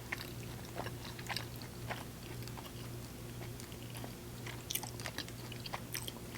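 Close-miked mouth sounds of a person chewing chicken: irregular wet clicks and smacks of biting and chewing, over a faint steady low hum.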